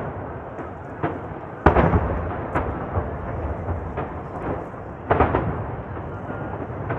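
Aerial firework shells bursting in a string of sharp booms over a continuous low rumble. The loudest boom comes a little under two seconds in, and a quick cluster of bursts follows about five seconds in.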